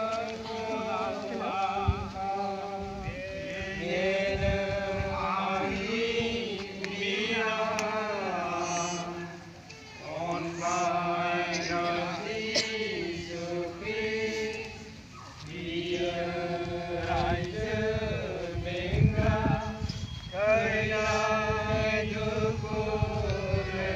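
A crowd of people chanting a prayer together in unison, in long held phrases with two brief pauses partway through.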